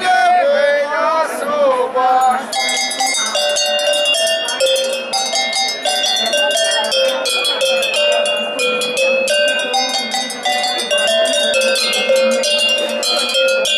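A row of tuned cowbells of graded sizes hung from a wooden pole, struck in quick succession to play a tune, several ringing notes a second at changing pitches. A man's voice is heard in the first two seconds, before the bells start at about two and a half seconds in.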